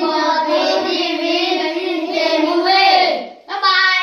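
A song sung in a high, child-like voice holding long, wavering notes, breaking off briefly about three and a half seconds in.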